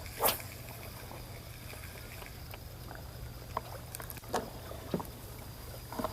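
A few sharp knocks and clicks over a steady low hum, the loudest knock just after the start.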